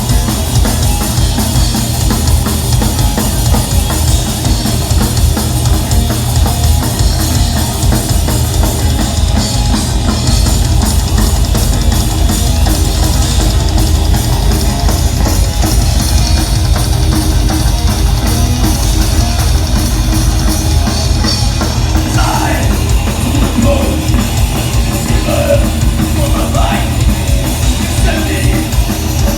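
Live heavy metal band playing loud and fast: pounding drum kit with heavy bass drum under distorted guitars, with a voice singing or yelling over the last several seconds.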